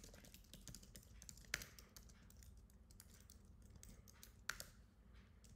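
Faint computer keyboard typing: a run of quick key clicks, with two louder strikes about a second and a half in and again about four and a half seconds in.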